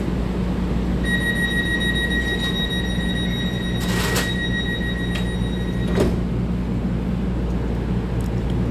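EMU3000 express train's doors closing: a steady door-closing warning beep sounds for about five seconds, with a knock about four seconds in and a clunk about six seconds in as the sliding doors shut. The train's steady low hum continues throughout.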